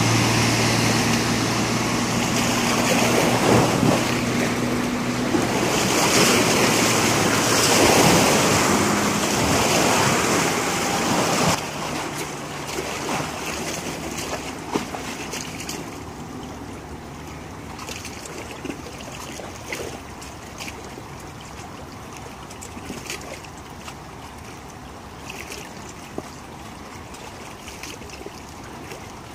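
Bayliner 2655 cabin cruiser's engine running as it passes at speed, its steady tone fading over the first few seconds amid the rush of its wake. After a sudden drop in level about a third of the way in, wake waves lap and splash against the riverbank.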